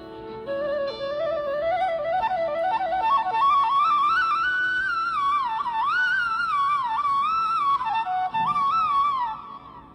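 Instrumental background music: a single woodwind-like melody climbs in pitch and winds about with sliding ornaments over a steady drone. It breaks off briefly near the end.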